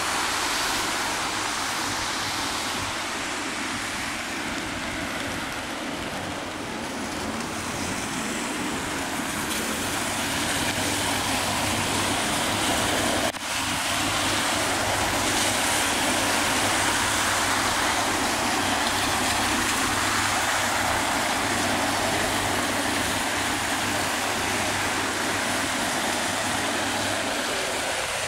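Steady city traffic on rain-soaked roads: tyres hissing on wet tarmac as cars pass, with a low engine hum that grows stronger about ten seconds in. The sound breaks off for a moment about halfway through.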